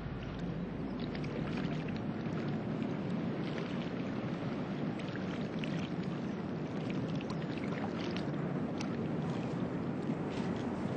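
Steady low rumble of distant traffic, with faint short high ticks or chirps scattered through it.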